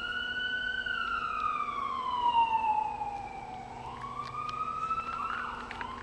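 Emergency vehicle siren wailing: its pitch falls slowly over about three seconds, rises again, and fades out near the end.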